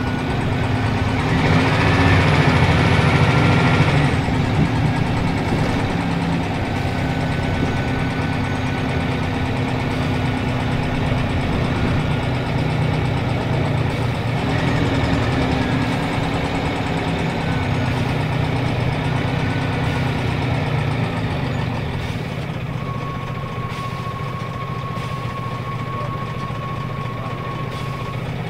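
Scania L94UB city bus's diesel engine and ZF automatic drivetrain running while the bus drives, heard from inside the passenger cabin. It is loudest for a couple of seconds near the start, and a steady thin whine comes in for several seconds near the end.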